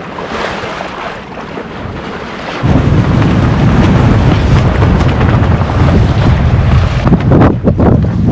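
Wind buffeting the microphone on a boat crossing open water, over a hiss of wind and sea. About two and a half seconds in, the buffeting suddenly turns much louder and heavier and stays that way.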